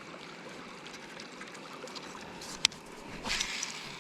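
River water flowing steadily. About two-thirds of the way in comes one sharp click, then a brief louder rush of noise.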